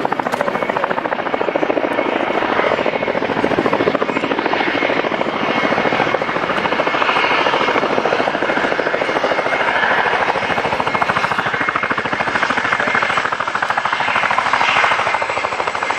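Boeing CH-47 Chinook tandem-rotor helicopter flying, its two rotors giving a loud, steady, rapid chop.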